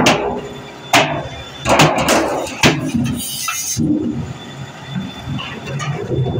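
Hammer blows on empty steel oil drums: sharp metallic strikes about a second apart, with a quick cluster of three a little under two seconds in, followed by a short hiss.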